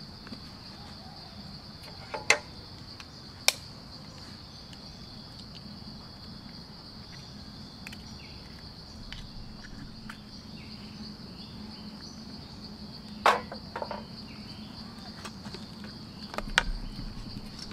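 Steady high-pitched chirring of insects, with a few sharp clicks and knocks from cooking as eggs are cracked into a frying pan, the loudest about two-thirds of the way through.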